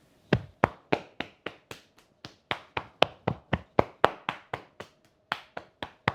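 Hands gently tapping together in an even rhythm of light claps, about four a second.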